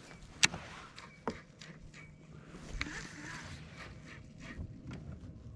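Handling noise from a baitcasting rod and reel in a plastic fishing kayak as the reel is cranked: one sharp click about half a second in, then softer knocks a little after one second and near three seconds.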